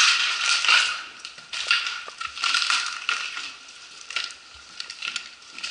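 Footsteps crunching on grit and broken plaster littering concrete stairs, an uneven run of gritty scrapes and crunches as people climb.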